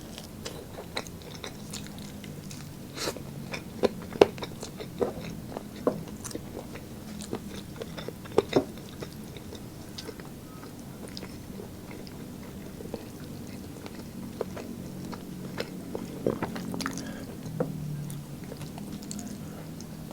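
A person chewing and biting roast meat and rice close to the microphone: irregular wet smacks and sharp clicks, with a few crisp crunches, over a low steady hum.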